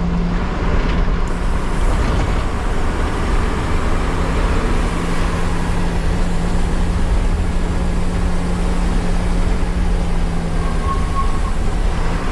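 Bus engine and road noise heard from inside the driver's cab while the bus drives along: a steady low hum over constant rumble.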